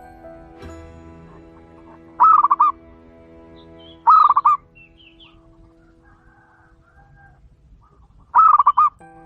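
Zebra dove (titiran) cooing: three short bursts of rapid, stuttering coo notes, the second following soon after the first and the third coming several seconds later.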